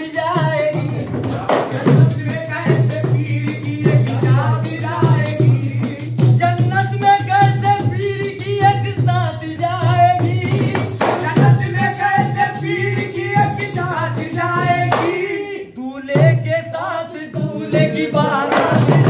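Sufi devotional music: a melody over a steady percussion rhythm, with a brief break about three-quarters of the way through.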